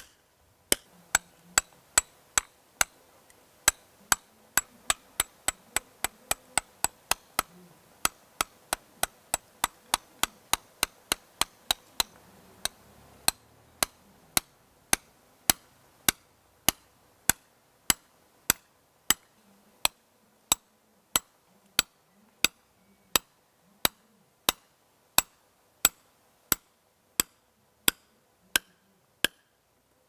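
A hand hammer repeatedly strikes a steel chisel bar, digging the test hole in compacted soil through a density plate for a sand-replacement density test. The strikes are sharp and even, about two a second, and slow a little about halfway through.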